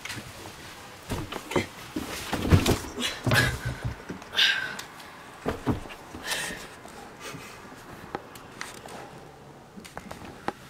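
Irregular thumps, knocks and clothing rustle of two people wrestling on a couch and then the floor, with a few short vocal noises mixed in; the knocks cluster in the first half and die down to lighter scuffling near the end.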